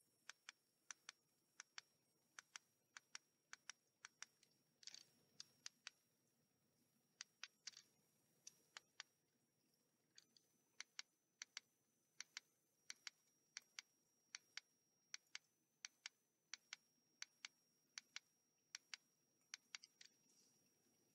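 Small plastic buttons on a budget dashcam clicking as its menus are stepped through: a long irregular run of short, sharp single clicks, about two a second, with a faint steady high whine underneath.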